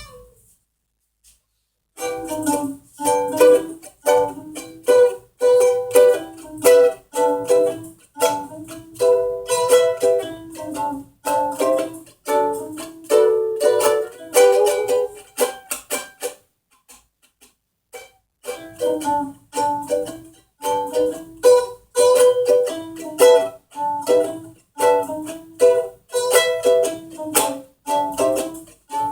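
Music played on a plucked string instrument: short picked notes in phrases, starting after about two seconds of silence and breaking off for a couple of seconds just past the middle.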